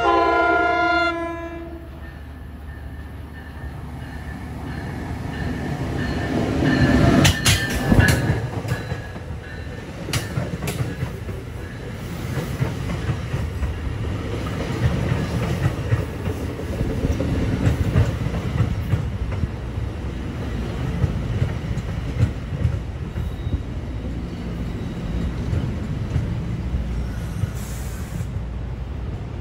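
An NJ Transit ALP-46 electric locomotive gives a short horn blast, then the train grows louder as it approaches. A burst of clattering comes as the locomotive passes about seven seconds in. After that, the double-deck multilevel coaches roll steadily past with a clickety-clack over the rail joints.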